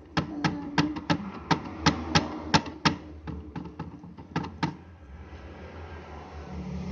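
A quick, uneven run of about fifteen sharp taps or clicks on a hard surface, stopping about two-thirds of the way through.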